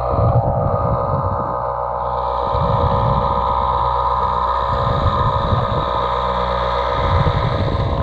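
Muffled underwater sound from a camera held below the surface: a low rumble of moving water that swells and fades, under a steady hum of several level tones.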